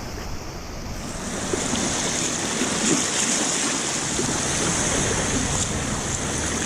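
Small waves washing up and foaming over the sand at the water's edge, with wind rumbling on the microphone.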